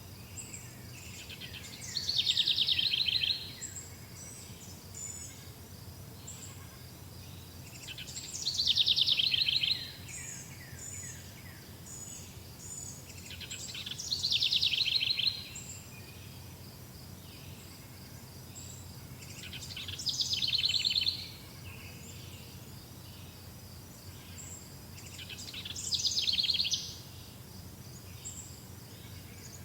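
A songbird sings a loud song about every six seconds, five times. Each song swells over a second or two and then stops abruptly, and softer high chirps from other birds come and go between songs.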